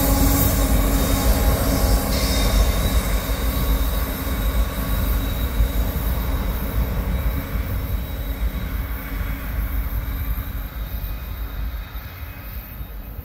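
Two BNSF diesel locomotives at the rear of a coal train rumble past close by, with a thin steady high whine over the engine and wheel noise. The sound fades steadily as they move away.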